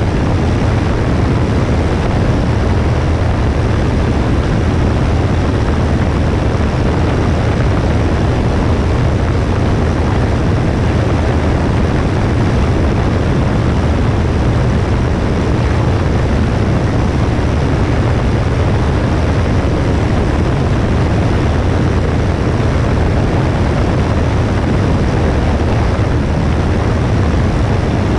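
Steady drone of a Cessna 172S's propeller and four-cylinder Lycoming engine, mixed with wind rushing over a wing-mounted GoPro, heavy in the low end and unchanging throughout.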